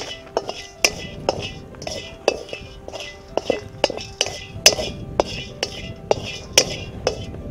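A wooden spatula scrapes and knocks against a large iron kadai about twice a second as cinnamon bark and cloves are dry-roasted. Steady background music plays underneath.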